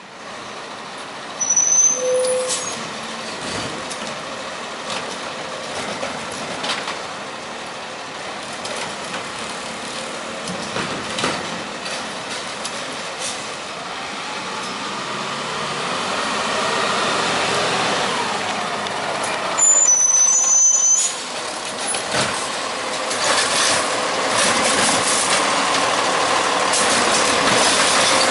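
Peterbilt 520 garbage truck with a Heil STARR automated side-loader body running as it pulls along the curb, with a short air-brake hiss about two seconds in and again about twenty seconds in. Near the end the engine speeds up and the hydraulic arm goes to work on a cart, with knocks and clanks.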